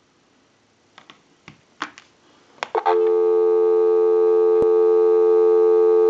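A few light clicks as the handset of a Western Electric Princess rotary-dial telephone is lifted off the hook, then, about three seconds in, a steady, unbroken North American dial tone from the receiver: the line is live.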